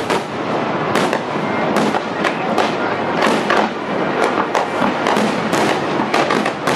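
Aerial fireworks shells bursting in a rapid barrage, several sharp bangs each second that overlap one another.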